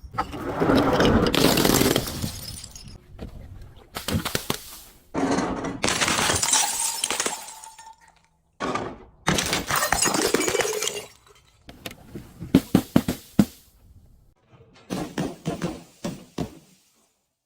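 Glass bottles being smashed: several crashes lasting a second or two each, followed near the end by a quick run of sharp cracks and smaller clinks.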